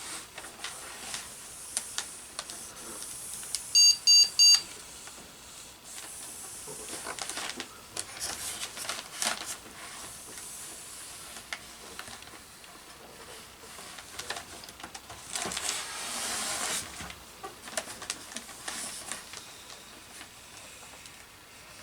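Plastic MonoKote covering film crinkling and rustling in several spells as it is stretched and ironed down onto a balsa wing, with small clicks and taps. About four seconds in, three quick, loud electronic beeps.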